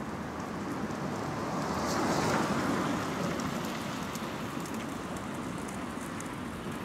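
Outdoor city street ambience: a steady hiss of traffic noise that swells and fades about two seconds in, with faint ticks.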